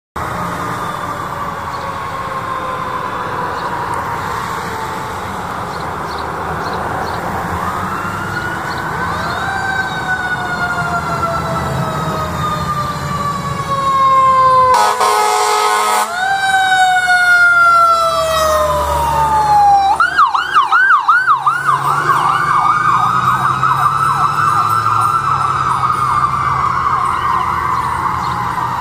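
Fire engine and ambulance electronic sirens wailing, slowly rising and falling in pitch, over a truck engine rumble. A loud air-horn blast comes about halfway through, and a few seconds later a siren switches to a fast yelp.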